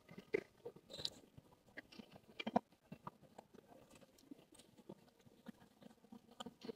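A person chewing a piece of chicken close to the microphone: soft, irregular crunches and mouth clicks, the loudest about two and a half seconds in.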